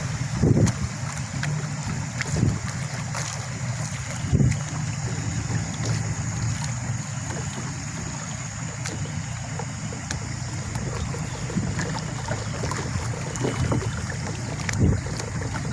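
Small boat's motor running steadily, with wind buffeting the microphone in occasional thumps.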